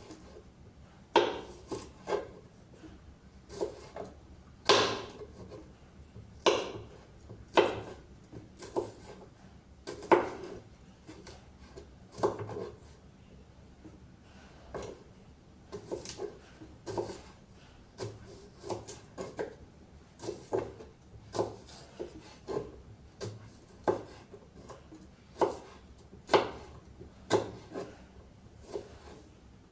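Kitchen clatter: irregular knocks and clinks of utensils and dishes against a wooden surface, roughly one a second.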